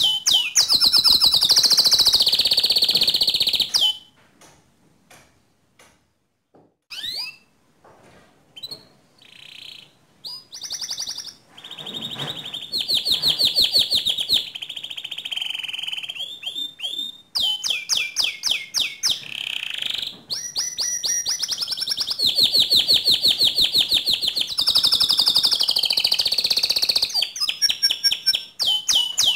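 Domestic canary singing a long song of rapid trills and rolls. About four seconds in, the song breaks off for a few seconds, then resumes with scattered notes that build back into continuous, loud trilling.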